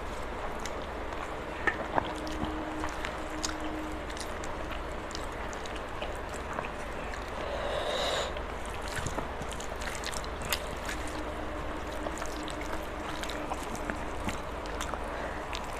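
Close-up eating sounds: mouth chewing rice and curry, with fingers squishing and mixing wet rice on a steel plate, giving many small wet clicks.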